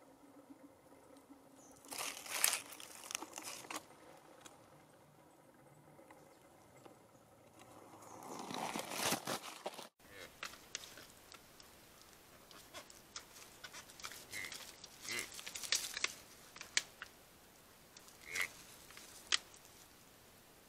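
Dry fallen leaves rustling and crunching in two bouts. After a sudden cut the sound turns to faint rustling and scattered clicks, with a few short high chirps near the end.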